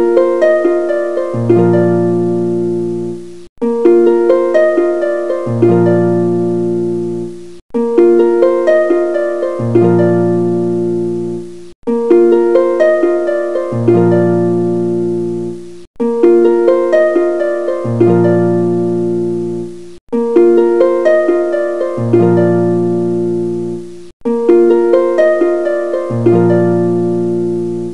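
Background music: a plucked-string, harp-style tune. A short phrase repeats about every four seconds, cutting off briefly between repeats, with low bass notes coming in partway through each one.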